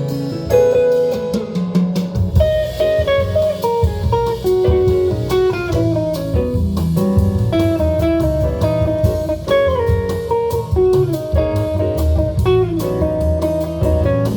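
Instrumental break of a jazz ballad played through SVS Ultra Tower loudspeakers: a guitar picks out a melody over bass and soft drums, with no singing.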